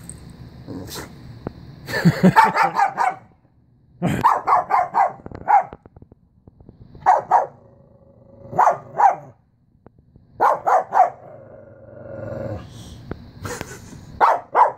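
Dog barking during rough play, in quick bursts of three to five barks every second or two, with low growling between some bursts.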